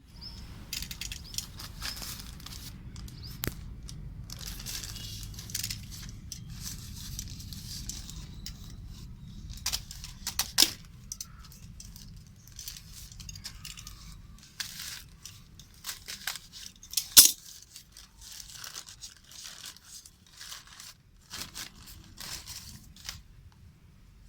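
Parcel packaging torn open and crinkled by hand in irregular rustling bursts, with a few sharp snaps, the loudest about two-thirds of the way through.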